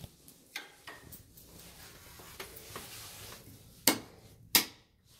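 Footsteps going down wooden stairs: a few soft steps, then two sharp, loud treads under a second apart near the end.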